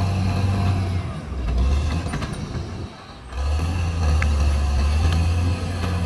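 CAT D6R bulldozer's diesel engine running with a steady low drone and a few faint clanks over it. The sound drops away suddenly for a moment about halfway through, then comes back at full strength.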